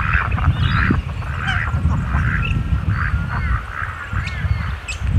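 Birds giving a run of short calls, one about every half second, over a low rumble of wind on the microphone.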